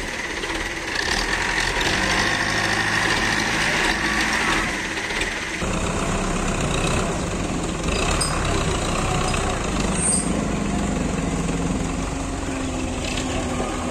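Belarus 510 tractor's diesel engine running steadily under load as it hauls a fully loaded trolley through canal water, the engine note changing abruptly about five and a half seconds in.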